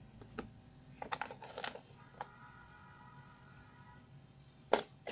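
Small electronic components, capacitors and other parts, clicking and rattling in a plastic parts box as a hand sorts through them. Scattered light clicks, a quick cluster of them about a second in, and the loudest sharp click near the end.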